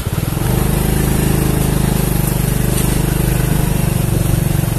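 Motorcycle engine running steadily close by, a low even putter.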